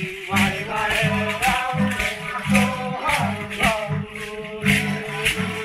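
Group singing for a traditional dance, with rattles worn on the dancers' ankles shaking in a steady beat of about two strokes a second.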